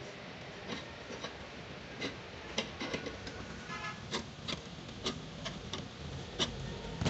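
Irregular sharp metal clicks and taps as pliers grip and bend a slotted metal mounting bracket strap on a plastic concealed cistern.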